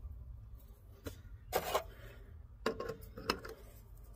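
Adjustable wrench clinking against the brass fittings of a tempering valve as its nuts are tightened: a handful of short, sharp metallic clicks a second or so apart, over a faint low hum.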